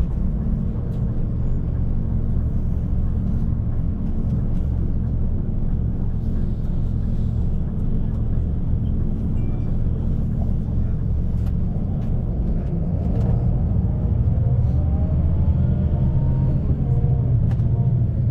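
Bus engine and road rumble: a steady low drone, with the engine note rising and getting a little louder from about two-thirds of the way in as the bus accelerates.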